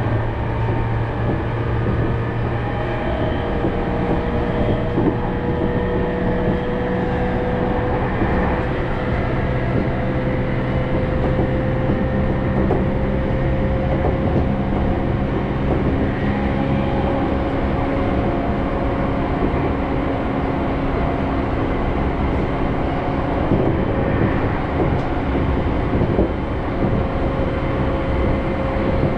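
Running noise of a commuter electric train heard from inside the passenger car: a steady rumble with a hum that slowly rises in pitch, and a few faint clicks.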